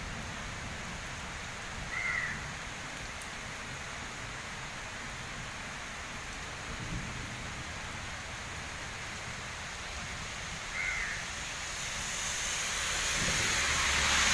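Steady rain falling on a wet road and roadside vegetation. A bird calls briefly twice. Near the end a rising hiss of tyres on the wet road swells as a vehicle approaches.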